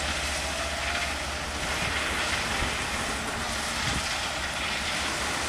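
Loaded BNSF ballast hopper cars rolling slowly over the track while ballast stone pours from their bottom gates: a steady rushing hiss of falling stone over a low rumble of wheels.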